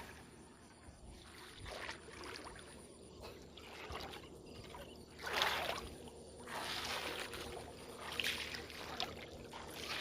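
Irregular splashing and sloshing of water in uneven swells, the loudest about five and a half seconds in.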